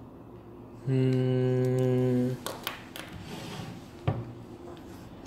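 A man humming one steady low note for about a second and a half, followed by a few short clicks.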